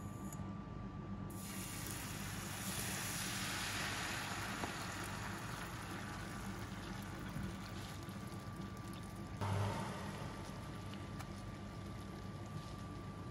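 A pale liquid mixture sizzling and hissing as it hits a hot, oiled nonstick frying pan. It is loudest a few seconds in, then settles into steady frying. A brief low thump comes about two-thirds of the way through.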